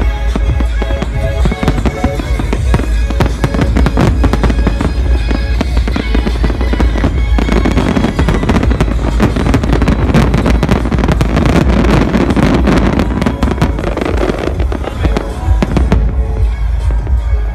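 Festival fireworks bursting and crackling over loud electronic dance music with a heavy bass. The bangs come thick and fast as a dense crackling barrage through the middle, then thin out near the end.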